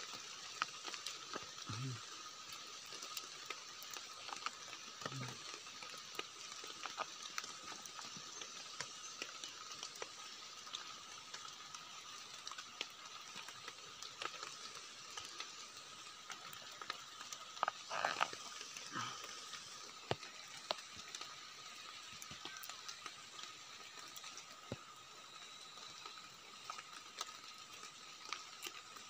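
Scattered soft clicks and crackles of soil, twigs and mushroom stems as hands dig and pull up white mushrooms, with a short cluster of crackles about two-thirds of the way through. Under it runs a steady high drone that sounds like insects.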